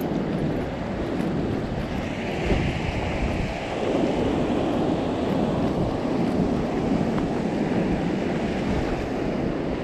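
Wind buffeting the microphone over the steady wash of surf breaking on a rocky shore.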